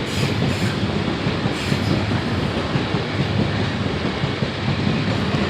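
Class 450 Desiro electric multiple unit, two units coupled, passing close by with a steady rumble of wheels on rail. A few sharp clicks come from the wheels crossing rail joints.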